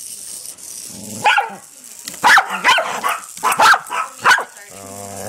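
Dogs barking at a Hexbug robotic toy: one bark about a second in, then a quick run of sharp barks, and a brief low growl near the end.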